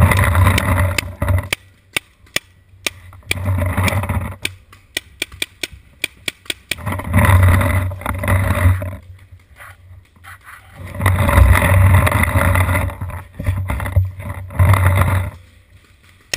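Paintball markers firing: scattered sharp pops through the whole stretch, between several bursts of dense noise that each last a second or two.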